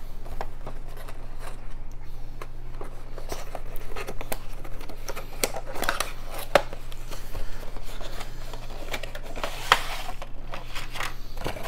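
A small cardboard miniatures box being opened by hand: scattered scrapes, taps and rustles of card and plastic as the flap is worked open and the plastic sprue is slid out, with one sharper click about ten seconds in.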